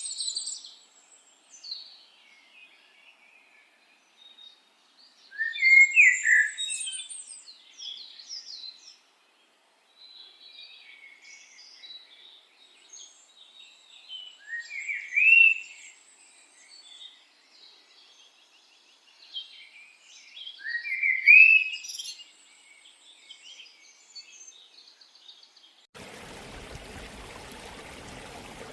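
A songbird singing: repeated phrases of high chirps and trills, each with a loud rising note, coming every several seconds. Near the end it cuts to a steady rushing noise.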